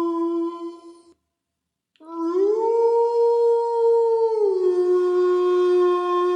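Wolf howl sound effect: a long, steady howl breaks off about a second in. After a second's pause a new howl starts, rises in pitch and holds, then drops back near the middle to a lower steady pitch that carries on.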